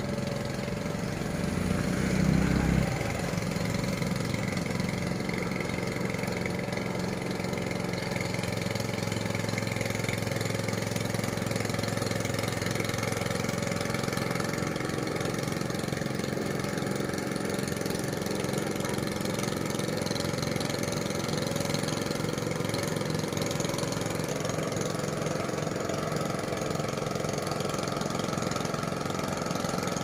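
Boat engine running steadily as it drives a wooden barge across the water, with a brief louder swell about two seconds in.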